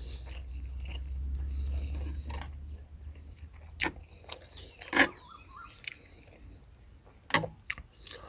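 Steady high insect trilling, with a low rumble over the first few seconds and a few sharp clacks, the loudest about five seconds in and another near the end.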